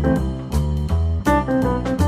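Background music: an upbeat instrumental with plucked or keyboard notes over a steady bass line.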